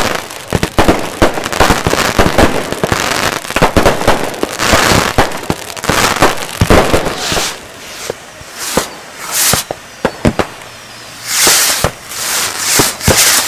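Consumer fireworks and firecrackers going off in a dense barrage of sharp bangs and crackling. After about seven seconds it thins out to scattered pops and a few loud hissing bursts.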